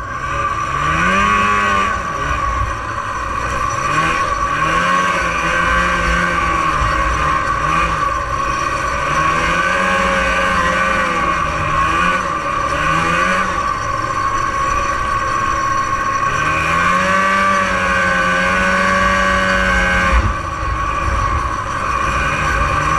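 1989 Arctic Cat Jag 440's fan-cooled two-stroke twin running under way, its pitch rising and falling again and again as the throttle is worked, with a long steady pull late on that drops off sharply. A steady high whine runs over the engine throughout.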